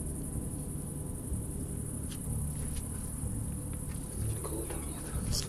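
Crickets trilling in a steady, high-pitched chorus over a low rumble.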